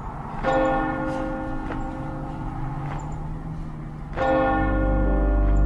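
A large bell struck twice, about four seconds apart, each stroke ringing on and slowly dying away. A deep low rumble comes in with the second stroke.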